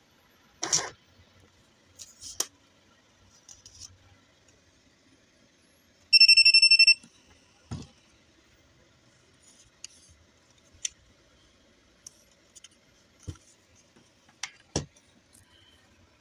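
PEDOOLO thermal label printer giving one high electronic beep, just under a second long, about six seconds in. Scattered clicks and knocks of the printer being handled come before and after it.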